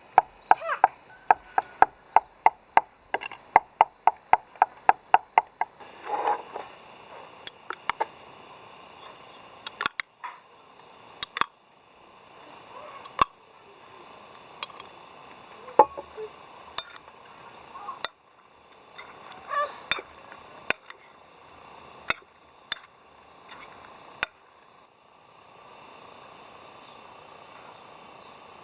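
A steady chorus of insects, with a quick, even run of sharp knocks, about five a second, for the first six seconds, then scattered single knocks.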